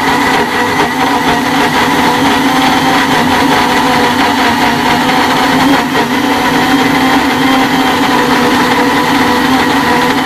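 Electric blender motor running steadily, its blades grinding fresh garlic cloves and water into a paste; an even, unbroken whine that holds one pitch.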